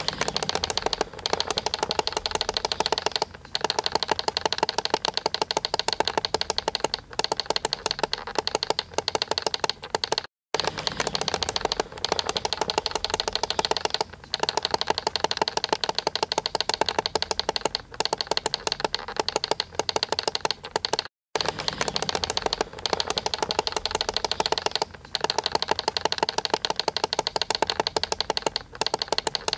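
Digital alarm clock's alarm going off: a very rapid, buzzy electronic beeping, many beeps a second, in runs broken by brief pauses every few seconds. It drops out completely for an instant twice.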